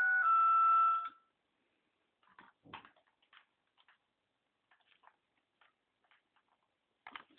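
Electronic tones from a toy KITT dashboard, held at a couple of pitches and stopping about a second in. Then faint scattered clicks and rustles of handling, with a louder rustle near the end.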